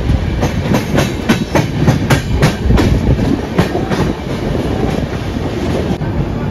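Moving passenger train heard from an open coach doorway: a loud, heavy rumble of wheels on rails with a quick, uneven clickety-clack over rail joints. The clicking stops about four seconds in, leaving a steady rumble.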